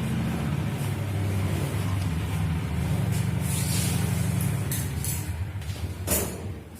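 A steady low mechanical hum that ends about six seconds in with a short hiss, after which the level drops.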